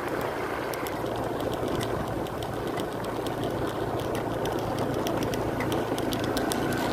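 Small motorcycle engine running steadily while riding along a road, with wind and road noise over it.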